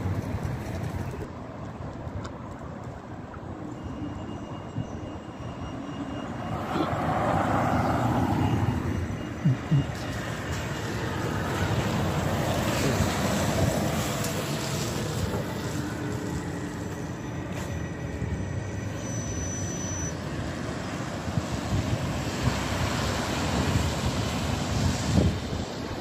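A bus driving past close by, over steady street traffic noise. The noise swells as it passes. Two short sharp knocks come about nine and a half seconds in.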